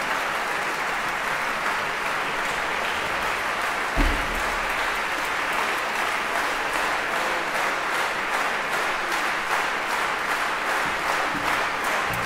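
Concert hall audience applauding steadily, with one dull thump about four seconds in. Toward the end the clapping falls into a rhythm of about three claps a second.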